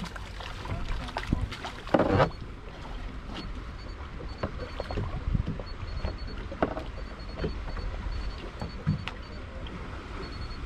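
Small boat on the sea: water lapping against the hull with wind rumbling on the microphone, and scattered knocks and clicks, the loudest about two seconds in.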